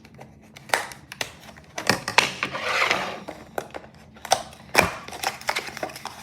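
Plastic retail packaging of a Rubik's Cube being opened by hand: scattered sharp clicks and snaps, with a longer stretch of crackling and crinkling about two to three seconds in.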